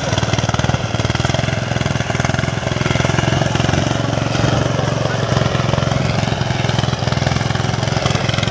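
A farm machine's engine running steadily with a fast, even beat.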